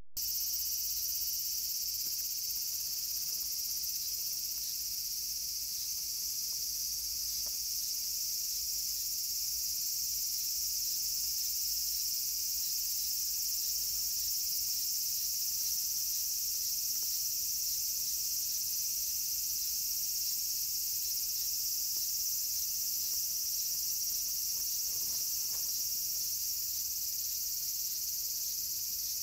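A steady, high-pitched chorus of insects in the surrounding grass and trees, continuous and unchanging.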